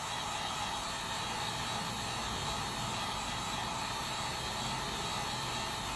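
Heat gun blowing steadily: an even, unchanging rush of air from its fan and heating element.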